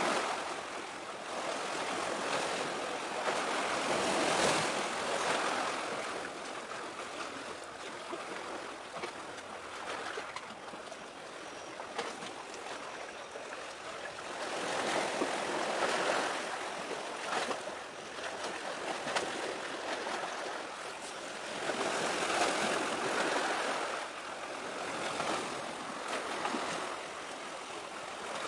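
Surf washing ashore: a hiss of breaking waves that swells and falls back about every six seconds.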